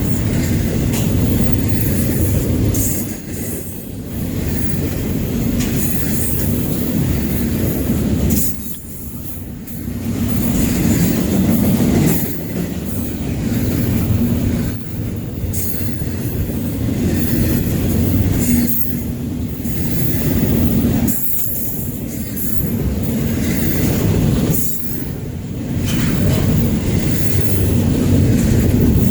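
Railroad train running on the tracks: a loud, continuous rumble of the cars rolling on the rails that briefly dips every few seconds.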